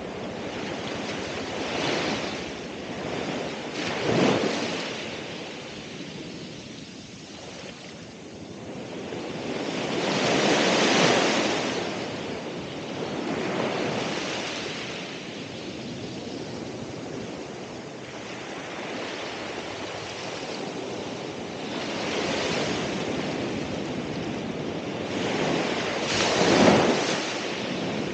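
Ocean waves breaking and washing on the shore, a steady hiss of surf swelling with each wave, the biggest breaks about 11 seconds in and near the end.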